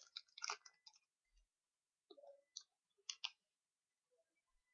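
Faint, scattered clicks and light taps of hands handling a small miniature model and its packaging: a cluster in the first half-second, then a few more about two and three seconds in.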